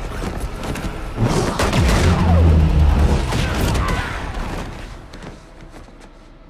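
Action-film fight sound effects: a dense flurry of sharp cracks and hits with a deep boom, starting about a second in and dying away by about five seconds.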